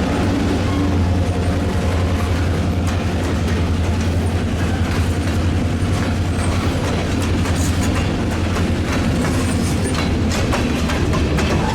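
Diesel train rolling past: a steady low locomotive engine drone, with wheels clicking over rail joints more and more often in the second half.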